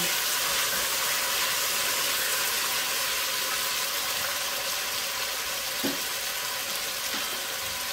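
Chicken pieces sizzling in hot oil with sautéed garlic, ginger, onion and tomato: a steady frying hiss as the meat starts to sear. A small knock about six seconds in.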